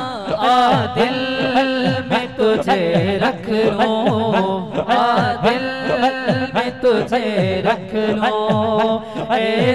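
A naat sung by a group of men on microphones, the melody rising and falling in long held phrases. Underneath runs a steady low drone and a low chanted pulse repeating roughly once a second, as in a naat sung with zikr.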